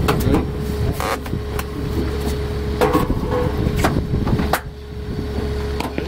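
Diesel engine of a Kubota bucket loader idling steadily, with several sharp knocks and bumps from a washing machine being manhandled against the boat's handrail and door frame.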